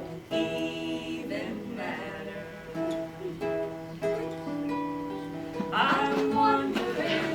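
Acoustic guitar strumming chords in an instrumental passage of a live song.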